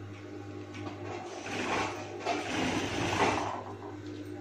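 Sewing machine stitching through fur fabric and lace for about two seconds in the middle, over a steady low hum.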